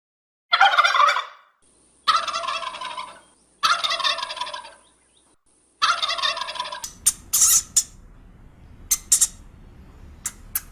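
Domestic turkey gobbling four times, each a rapid warbling call of about a second, followed by several short, sharp high-pitched clicks.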